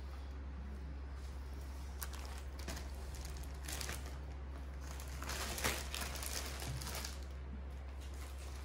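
Raw chicken being cut up and handled: scattered crinkling and crunching, busiest and loudest a little past halfway, over a steady low hum.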